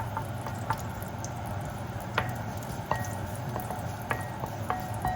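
Garlic and sliced ginger sizzling steadily in hot oil in a small pot, with a metal utensil clinking against the pot now and then as it is stirred; some clinks ring briefly.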